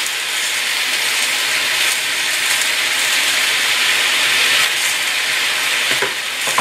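Chicken and vegetables sizzling steadily in a wok over a gas flame: an even frying hiss.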